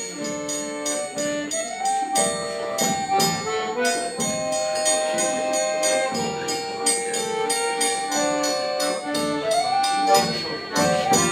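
Instrumental music with a steady beat under sustained melody notes.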